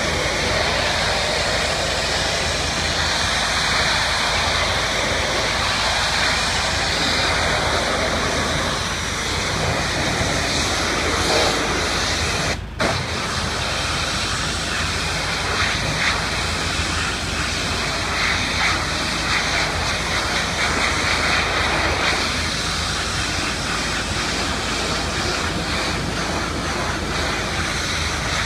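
Pressure washer spraying a water jet onto house siding and eaves: a steady rushing hiss, with one brief dropout a little under halfway through.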